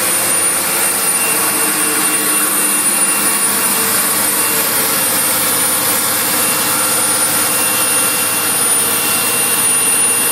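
Caterpillar marine diesel engine of a Trojan 44 Express cruiser running steadily, a loud even drone with a thin high whine over it. It is heard through the open engine room hatch.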